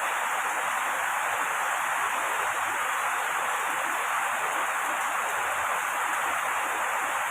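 Steady rain sound, an even rushing hiss with no breaks or changes.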